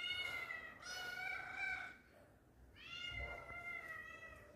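A young tabby kitten meowing: three drawn-out meows of about a second each, the calls of a lone kitten searching for company.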